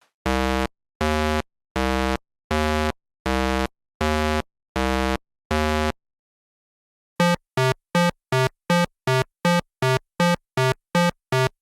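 Synthesized buzzer tones: eight long, low buzzes at an even pace, then a short pause, then a faster run of shorter, higher buzzes at about three a second.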